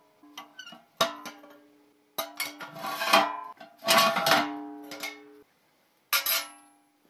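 Hinged steel doors of a welded stove top being swung open and banged shut with a rebar hook: a string of metal clangs, about six in all, each ringing on at the same pitch before fading, loudest a little past the middle.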